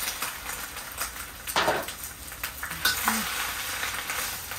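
Bok choy sautéing in hot oil in a pot, sizzling steadily as it is stirred, with a few sharper scrapes and knocks of the utensil against the pot.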